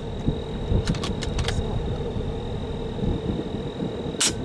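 Two sharp cracks of an air rifle being fired, one at the start and one about four seconds in, with a quick run of metallic clicks about a second in. A low steady rumble and a thin high whine run underneath.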